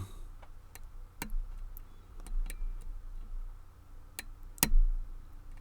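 Small, sharp metallic clicks from a lock pick and tension wrench working the pins of a Defiant 5-pin lock cylinder, coming irregularly a few at a time, with one louder click a little past four and a half seconds in.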